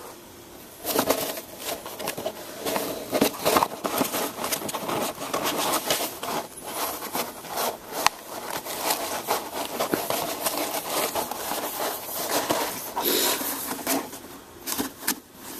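Boston Terrier puppy biting and pawing at a large roll of brown paper: irregular scraping, crinkling and crackling of the paper with sharp clicks, starting about a second in.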